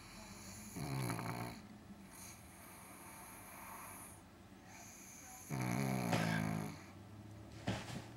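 Sleeping pug snoring: two loud, rattling snores about four and a half seconds apart, each lasting about a second, with a quieter breath between them and a short, sharp snort near the end.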